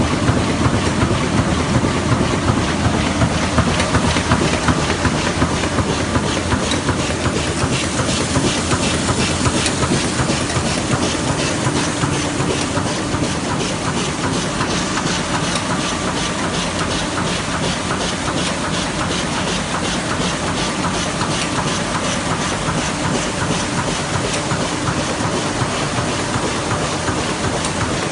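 Mitsubishi Diamond 3000 four-unit sheetfed offset press running, a loud, steady mechanical clatter with a rapid, even ticking rhythm.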